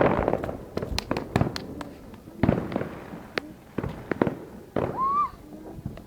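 Aerial fireworks going off in an irregular run of sharp bangs and crackles, starting with a broad, rushing burst.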